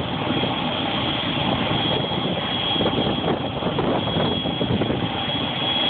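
Helicopter running on the ground with its rotor turning: a steady engine and rotor noise with a constant high whine on top.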